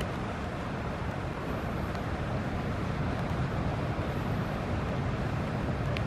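Steady outdoor background rumble and hiss, with no bird calls standing out.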